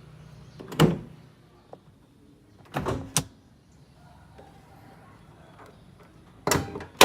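A handful of sharp, loud clunks: one about a second in, two close together around three seconds, and two more near the end, each with a short ringing tail.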